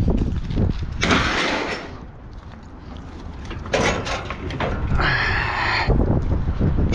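Scrap metal scraping and clanking in three bursts as pieces are dragged and pulled off a truck bed. The last burst has a ringing screech of metal on metal. A low rumble runs underneath.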